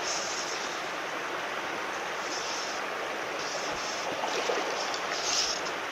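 Shallow, clear stream flowing over stones: a steady rush of water, with a couple of brief louder moments near the end.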